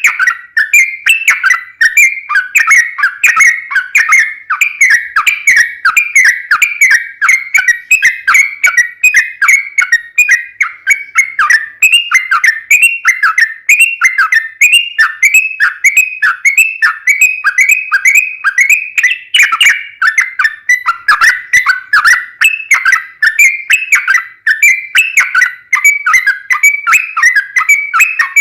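Yellow-vented bulbul singing a long, unbroken song: a fast, continuous run of short bubbling whistled notes, many each second, each sliding slightly downward.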